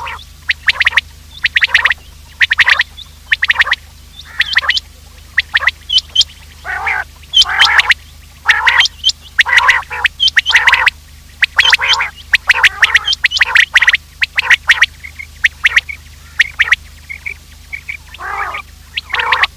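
Recorded quail calls used as a hunting lure: short bursts of rapid clicky calling repeated about once a second, with a couple of lower, fuller calls mixed in.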